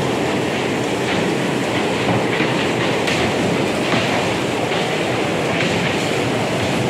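Electric bumper cars running across the arena floor: a steady, loud rolling rattle with no break.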